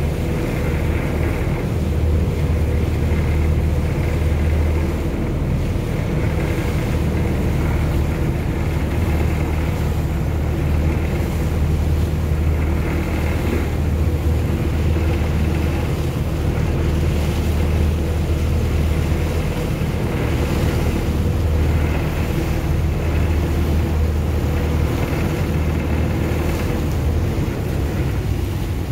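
Small motorboat's engine running at a steady cruise as a low, even drone, with wind on the microphone and water rushing along the hull. The low drone eases a little near the end.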